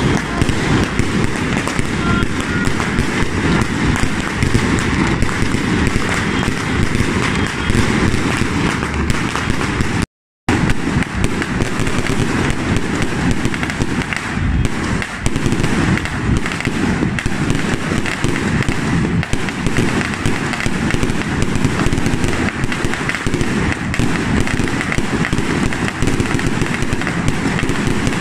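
Dense, continuous barrage of firecrackers and ground-launched fireworks going off in the street: rapid, overlapping crackling and popping bangs with no let-up. The sound cuts out completely for a split second about ten seconds in.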